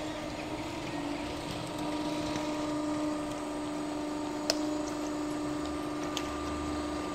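Electric drive of a level-crossing barrier running with a steady hum as the red-and-white booms with hanging grilles lift to open the crossing. A single sharp click about four and a half seconds in.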